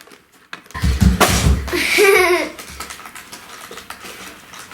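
Loud crinkling and handling of a plastic Lego package being pulled at, lasting about two seconds, with a short laugh-like voice near its end.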